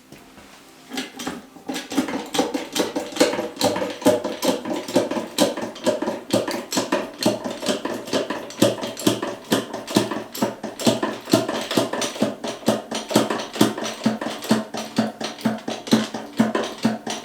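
Hydraulic jack being pumped to lift the tractor, squeaking with each stroke of the handle at about three strokes a second, starting about a second in.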